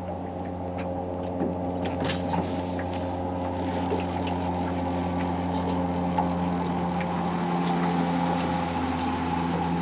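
Small outboard motor running steadily at trolling speed, a constant low hum, with a few faint scattered clicks from the fishing reel and tackle as a hooked fish is reeled in.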